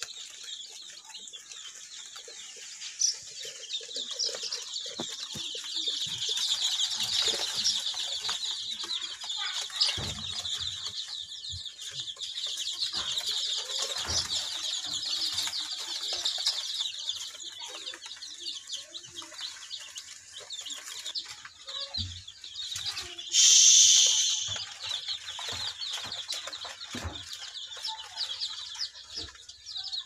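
A brooder full of 13-day-old local chicks peeping constantly, many short high cheeps overlapping. About three-quarters of the way through there is a much louder burst lasting about a second, and a few low knocks come and go.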